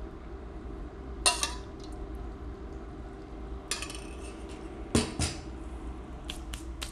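Dishes and utensils clinking against a bowl a few times, with sharper knocks about a second in and twice around five seconds in, over a steady low background hum.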